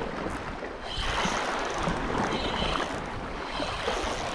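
Sea waves washing and sloshing against rocks with some wind, a steady noisy wash that swells about a second in.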